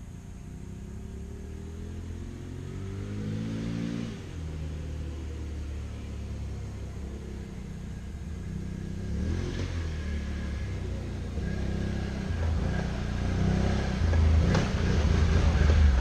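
2017 Can-Am Renegade XMR 570 ATV's Rotax V-twin on its stock exhaust, accelerating with the pitch rising and then dropping sharply a few seconds in. It then keeps running and grows steadily louder, loudest near the end.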